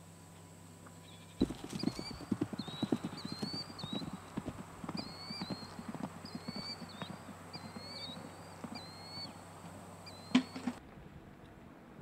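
Horses galloping over pasture ground: a fast, irregular run of dull hoofbeat thuds starting about a second and a half in, with a short chirping call repeated above them. Near the end comes a single sharp knock, the loudest sound, and the sound then cuts off abruptly.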